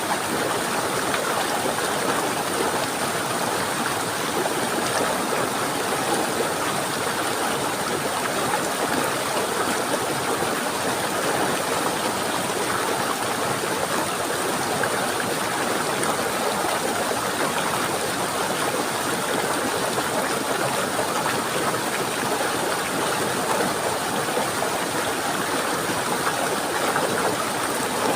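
Running water flowing in a steady, unbroken rush.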